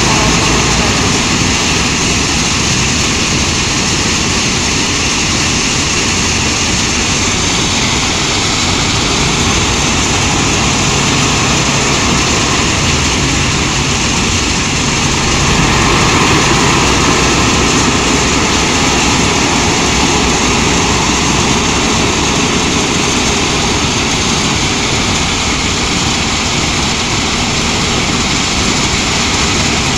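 Loud, steady din of heavy machinery: a wheel loader's diesel engine working beside a running stone crusher and its gravel conveyor, swelling slightly about halfway through.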